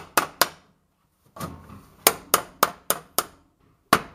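Becker BK3 knife's thick 1095 Cro-Van steel blade used as a hammer, striking a wooden bench rail in quick runs of sharp knocks, about four a second, with a short pause between runs, to drive a pried-up rail back into place.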